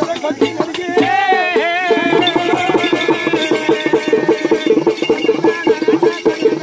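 A hand drum beaten in a fast, even rhythm, with a voice crying out in long sliding notes about a second in.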